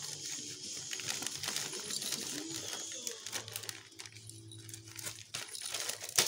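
Packaging crinkling and rustling as a present is handled, with many small clicks and clinks and one sharp click near the end.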